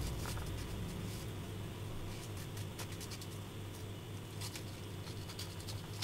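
Small paring knife cutting into an apple wedge: scattered small crisp clicks and scrapes of the blade through the fruit, over a steady low hum.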